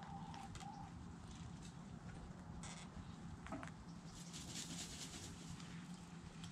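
Chickens scratching, pecking and dust bathing in loose dirt: a faint, scattered patter and scratching of soil, thicker between about four and six seconds in. A soft clucking note at the start and a short call about halfway through, over a steady low hum.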